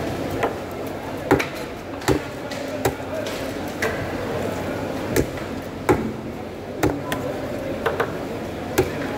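Large knife chopping rohu fish pieces on a wooden chopping block: about ten sharp chops, roughly one a second.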